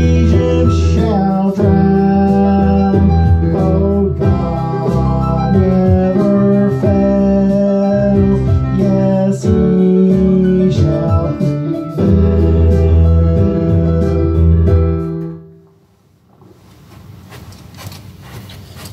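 Electronic keyboard playing the closing instrumental of a song, chords over a steady bass, which ends about fifteen seconds in and dies away. A few faint clicks follow, then a knock near the end.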